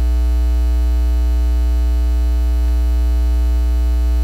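Loud, steady electrical mains hum with a stack of buzzing overtones: unwanted noise in the audio system.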